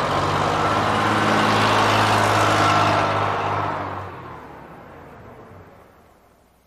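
A city bus's engine running, steady for about three seconds, then fading away as it pulls off into the distance.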